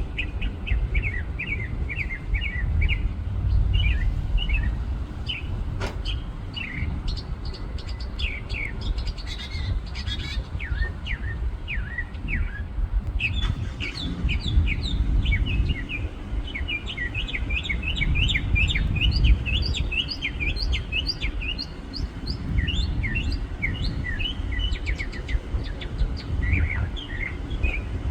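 A songbird singing a long, varied song of quick chirping notes, phrase after phrase. A steady low rumble runs underneath.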